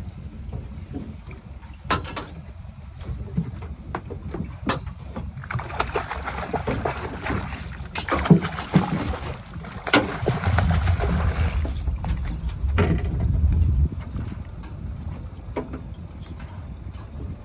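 Hooked yellowtail splashing and thrashing at the surface beside the boat for several seconds in the middle, over a steady low rumble, with a few scattered knocks.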